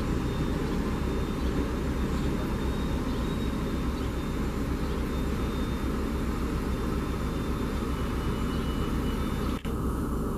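Steady low rumble of an approaching Amtrak Keystone Service electric train, with a faint thin high tone above it. The sound drops out briefly near the end.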